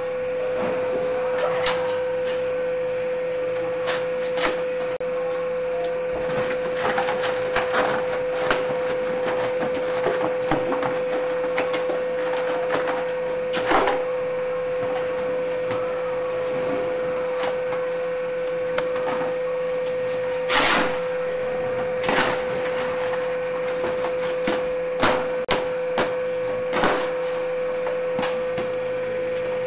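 A steady hum with hiss, broken by scattered clicks and knocks as flat corrugated cardboard box blanks are handled and dropped; the loudest knock comes about two-thirds of the way in.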